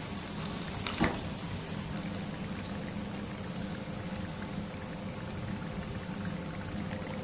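Spring rolls deep-frying in hot oil in a pan: a steady sizzle with small crackles. A brief knock about a second in, from a spatula against the pan.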